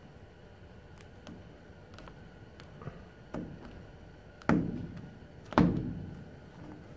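Small ticks and taps, then two louder thumps about four and a half and five and a half seconds in, each dying away over about a second: fingers pressing and working vinyl stripe against the fabric-covered side of a Kitfox airplane.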